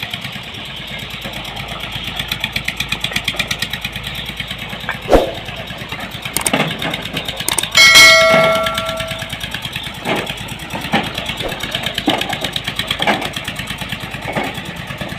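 A heavy construction machine's engine running with a fast, steady pulse. There is a sharp knock about five seconds in, then a loud metallic clang that rings for over a second. Several more knocks follow in the second half.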